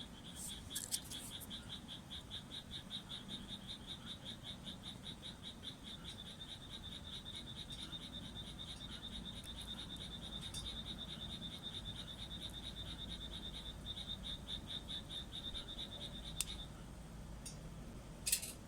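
A frog calling: one long series of rapid, evenly spaced high notes that stops abruptly near the end. A few sharp clicks, the loudest about a second in and near the end.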